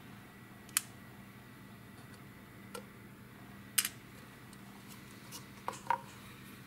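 Small plastic model-kit parts being handled and set down on a workbench: about five light, sharp clicks and taps, the loudest a quick double click near the middle, over a faint steady room hum.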